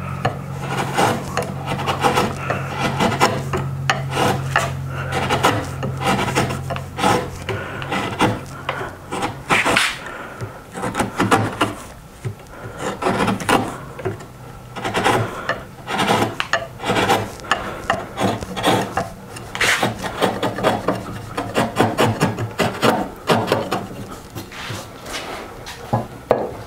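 Wide bench chisel paring the rounded edges of a wooden tenon by hand: a run of short, irregular scraping strokes as shavings come off the wood.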